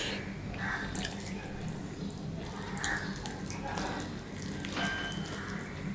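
Close-up wet chewing and lip-smacking from eating soft vegetable khichuri, with irregular small clicks, and fingers working the rice and lentils on a steel plate.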